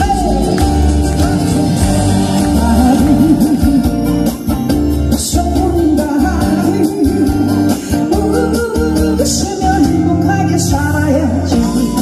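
A singer performing over loud instrumental backing music with a steady bass line.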